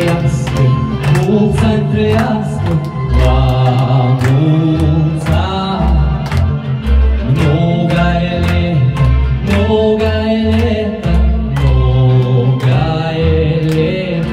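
A song: a sung melody over a steady beat and bass notes.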